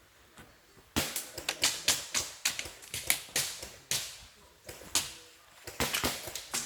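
A fast series of sharp clicks or knocks, about three a second, starting about a second in, with a short lull near the middle.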